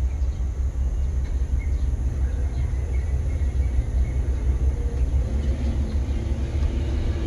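Scania P410 truck's diesel engine idling steadily, a low rumble heard from inside the cab.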